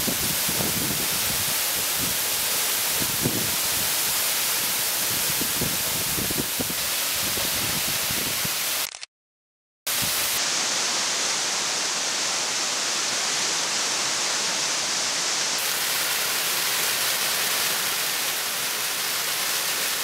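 Steady rushing of a tall twin waterfall in flood pouring into its plunge pool. The sound cuts out to silence for about a second near the middle, then the rushing resumes.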